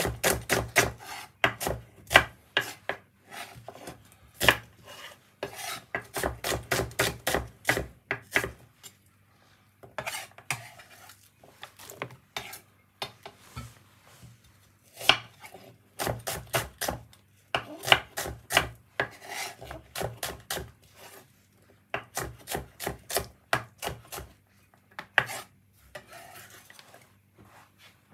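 Knife chopping onion on a cutting board: quick runs of sharp strokes, several a second, with short pauses between the runs.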